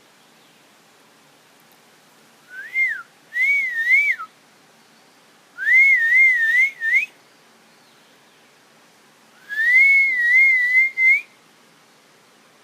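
Three loud, clear whistled phrases, each sliding up and then wavering up and down around one pitch for about a second and a half, with pauses of about a second and a half to two seconds between them.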